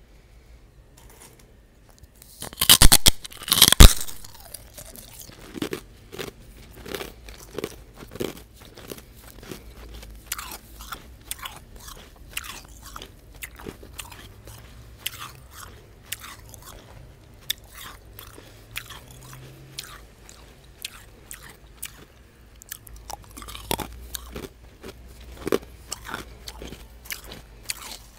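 A person biting and chewing refrozen crushed ice right at an earphone microphone. A loud crunching bite comes about three seconds in, followed by a long run of smaller crunches as the pieces are chewed, with a few louder crunches again near the end.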